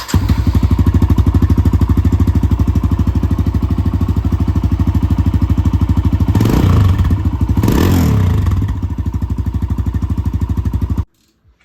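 Kawasaki KLX140 dirt bike's single-cylinder four-stroke engine idling through its stock exhaust, with a steady pulsing beat. Two quick throttle blips come a little over halfway through, each a brief rise in revs. It cuts off suddenly near the end.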